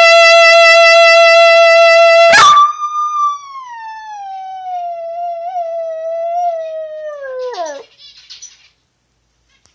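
A saxophone holds one loud steady note for about two seconds and breaks off sharply. A small dog then howls along: one long note that starts high, wavers as it slowly falls, and drops away sharply near the end.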